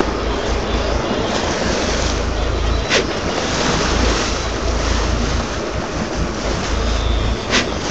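Wind rumbling on the microphone over the steady wash of the sea around a boat, with a sharp click about three seconds in and another near the end.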